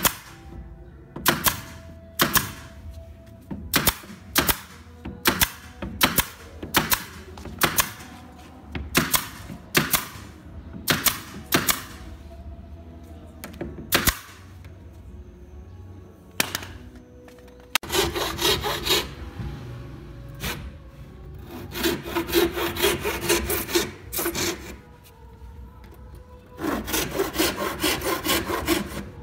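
A pneumatic brad nailer fires about twenty times in quick succession through the first fourteen seconds, a sharp clack with each nail driven through the thin plywood panel into its frame. From about eighteen seconds in, a hand frame saw cuts wood in four short bouts of back-and-forth strokes.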